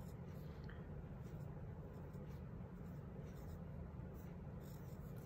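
Faint pencil scratching on paper in short strokes, over a low steady hum.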